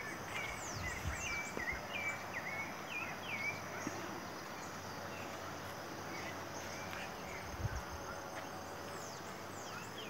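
Small birds chirping in quick repeated short notes, frequent for the first few seconds and sparser after, with a few high falling whistles. Insects drone steadily underneath.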